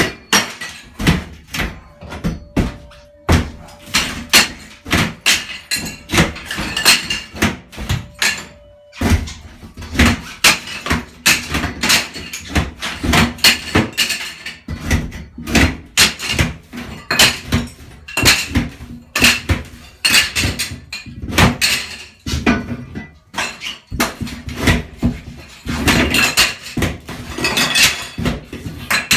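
Honey Badger HB56 demolition fork striking and prying ceramic wall tile: repeated sharp knocks and cracks, around two a second, as tile breaks loose and pieces clatter into the bathtub.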